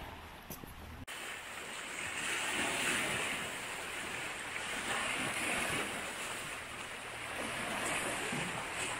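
Small sea waves lapping and washing over a rocky, pebbly shore, with some wind on the microphone. The sound changes abruptly about a second in, then rises and falls gently.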